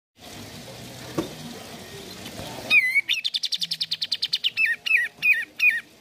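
Kapas tembak bulbul singing: a bright wavering whistle about halfway in, then a fast trill of about a dozen notes a second, then a few short, separate falling whistles.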